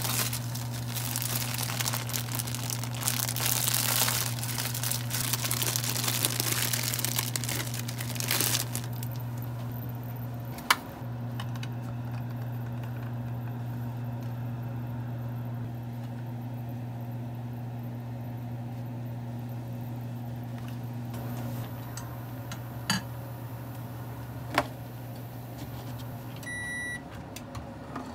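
Water boiling hard in a pot, a dense bubbling hiss for about the first eight seconds, over the steady hum of a running kitchen appliance. A few sharp clicks follow. Near the end the hum stops, and a short electronic beep sounds.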